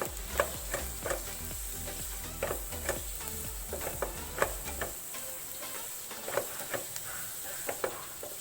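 Fried rice with carrots and string beans sizzling in a frying pan while a spatula stirs it, with irregular scraping knocks of the spatula on the pan. A low background hum cuts off about halfway through.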